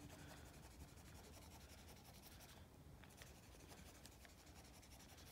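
Felt-tip washable marker drawn in quick strokes across a plastic sheet: faint, continuous scratchy rubbing with small ticks as the tip moves.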